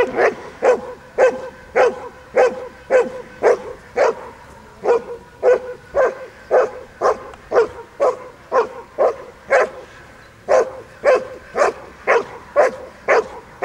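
German shepherd barking steadily and rhythmically, about two barks a second. This is alert barking at a protection-training helper, on the handler's "stranger!" guard command.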